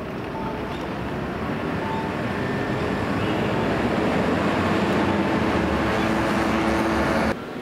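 Road traffic noise, swelling gradually for several seconds as vehicles pass close, then cutting off abruptly near the end.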